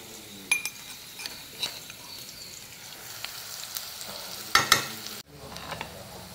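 A steel spoon stirring sliced onions frying in oil in a stainless steel wok. A faint sizzle runs underneath scattered scrapes and clinks of the spoon against the pan, and the loudest clinks come about four and a half seconds in.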